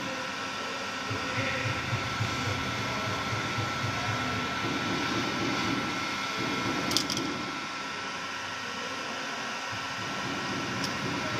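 Heat gun blowing steadily while a split rubber hose is heated to be pressed into layers, a constant whine over the rush of air. A sharp click about seven seconds in.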